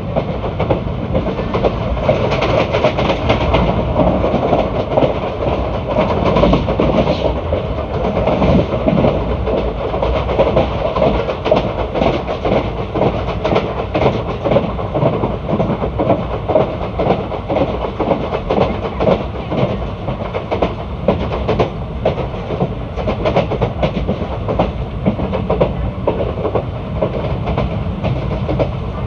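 Indian Railways ICF passenger coach running on the track: a steady rumble with a dense, continuous clatter of wheel clicks and coach rattles.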